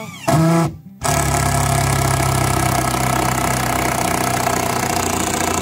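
A motor running steadily, loud and unchanging, starting abruptly about a second in. Just before it there is a short, loud voice-like call.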